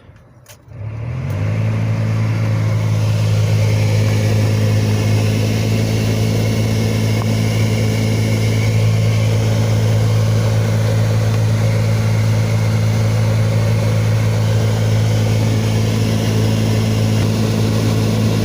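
Cabin blower motor of a 2020 Isuzu D-Max switched on, spinning up within about half a second to a loud, steady hum with air rushing through the vents. This is a faulty blower motor, of the kind whose fan axle has play and makes a trembling noise on all speeds.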